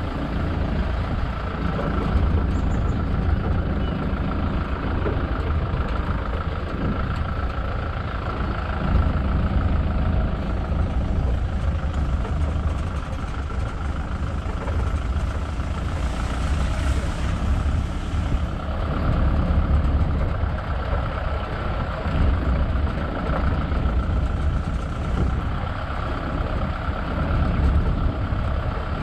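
Safari vehicle's engine running steadily as it drives, a low rumble that swells and eases, with a thin steady whine above it.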